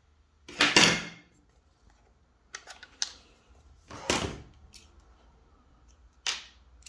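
Handling of a precision screwdriver and small tools on a cutting mat: four short knocks and clicks as they are picked up and set down, the loudest about a second in.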